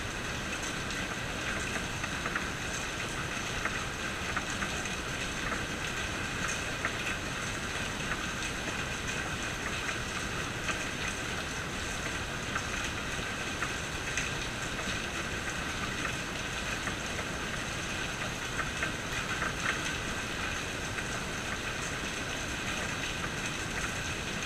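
Steady rainfall, with many small drop ticks on nearby surfaces.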